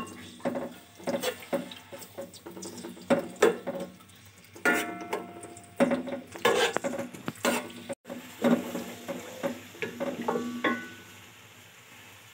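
A spoon stirs garlic paste frying in hot oil in a metal pot, scraping and knocking irregularly against the pot so it rings briefly at times, over a light sizzle.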